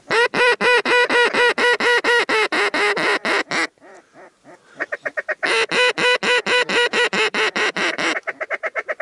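Duck call (mallard hen call) blown by a hunter in long runs of rapid, evenly spaced quacks, about five a second. There is a short break about four seconds in, and a quicker, softer run near the end, calling to ducks in flight.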